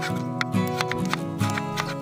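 Background music with a plucked-string sound, over a kitchen knife chopping tomato on a wooden cutting board: a string of sharp taps, several a second, at an uneven pace.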